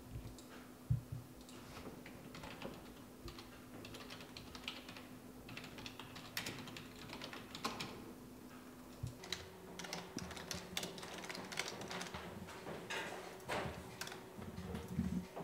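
Typing on a computer keyboard: irregular, unevenly spaced key clicks over a faint steady hum.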